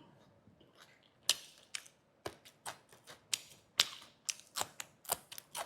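Chewing a crusty bánh mì baguette with grilled pork: a run of sharp, irregular crunches that starts about a second in.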